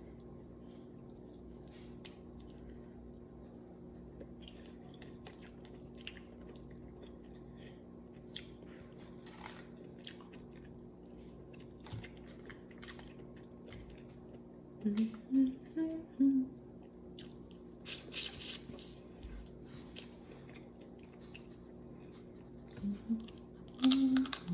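Crab legs being cracked and picked apart by hand, with scattered small shell snaps and clicks, and close-up chewing of the crab meat. A few brief vocal noises from the eater stand out about fifteen seconds in and again near the end.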